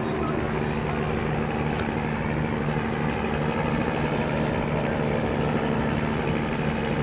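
A large passenger ship's engines running with a steady low drone as the vessel moves slowly past.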